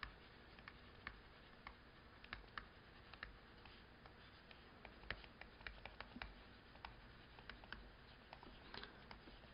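Near silence, broken by faint, irregular ticks and scratches of a pen writing words out by hand.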